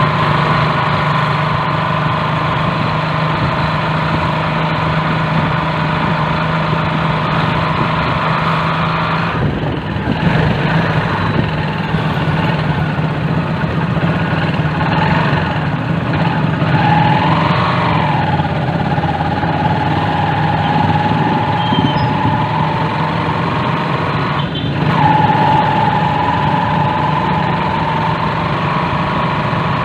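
Engine of a moving passenger vehicle running steadily, heard from on board, its note shifting up and down now and then with the throttle.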